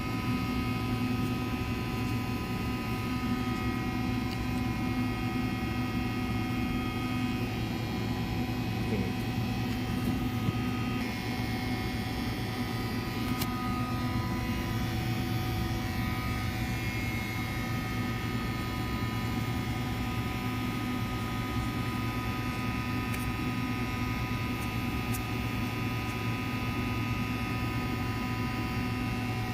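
Laboratory microwave pyrolysis apparatus running: a steady machine hum with a low drone and several steady whining tones.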